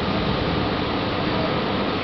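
Steady, even rushing noise with no thunderclap, knock or other distinct event.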